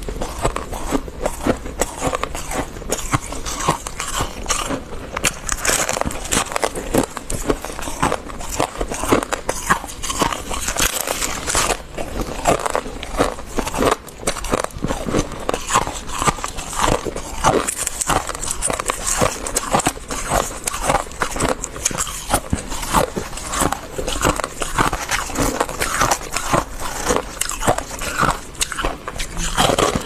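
Frost scraped from a chest freezer being bitten and chewed: dense, crisp, irregular crunching that goes on without a break.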